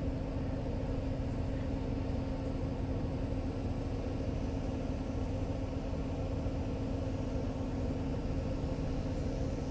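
Steady low mechanical rumble with a constant hum, unchanging throughout, like an engine running.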